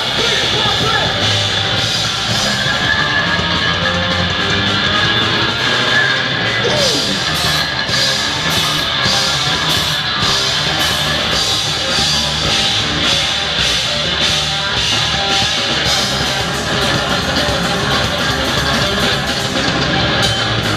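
Heavy rock band playing, with electric guitar and a drum kit keeping a regular beat.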